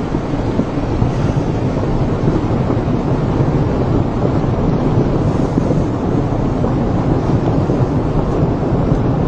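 Wind buffeting the microphone: a steady, loud low rumbling noise with no breaks or separate events.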